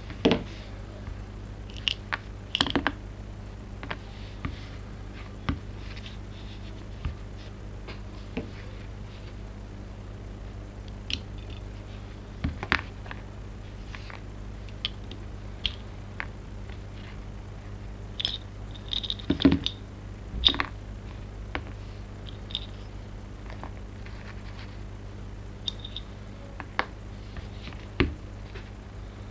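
Small parts of an airsoft rifle's trigger mechanism being handled: scattered light clicks and taps of plastic and metal pieces, pliers and the housing against each other and the wooden board, with a few sharper knocks among them. A steady low hum runs underneath.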